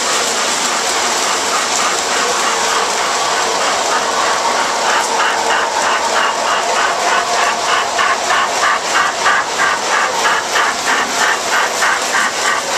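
O-gauge model trains and a model roller coaster running: a steady mechanical whir with faint steady tones, joined about five seconds in by an even clicking, about five clicks a second, as the coaster's cars climb the lift hill.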